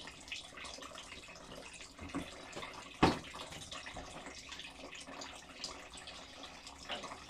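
Grape must trickling and dripping out of a wooden basket wine press into its collecting tray, with many small irregular drips and one sharp knock about three seconds in.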